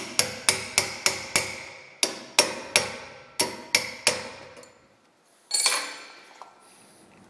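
Hammer striking a copper punch against a crash-bent sheet-metal saddlebag mount from a BMW R1100S motorcycle clamped in a bench vise: about a dozen sharp, ringing metallic blows, roughly three a second, working the twisted bracket back into position. The blows stop about four seconds in, followed by a short scraping rustle.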